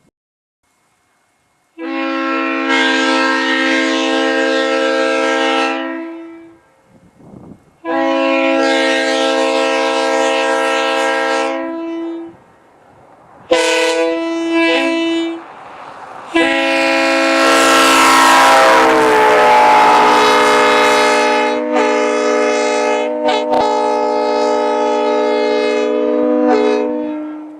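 A 1971 Leslie SU3L three-chime locomotive air horn sounding its chord in blasts: two of about four seconds each, then a short one, then a long blast of about eleven seconds whose pitch wavers and sags near its start before holding steady.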